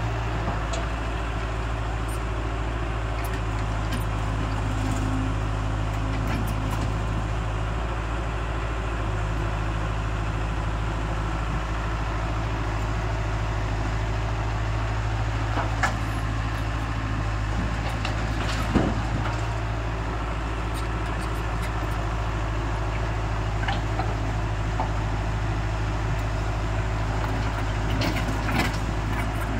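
Diesel engine of a JCB mini excavator running steadily under load while it digs and loads rock, with a few sharp knocks of rock and bucket partway through.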